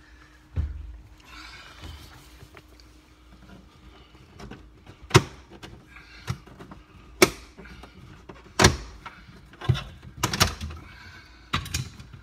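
Plastic retaining clips of a dashboard trim panel snapping loose one after another as the panel is pried off with a plastic trim tool: about seven sharp snaps a second or so apart in the second half, after a dull thump near the start.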